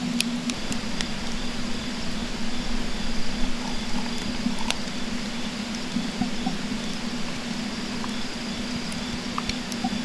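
Wood fire burning in a small box-type camp stove, with a sharp crackle or pop now and then, over a steady low hum and a faint, evenly pulsing insect chirp.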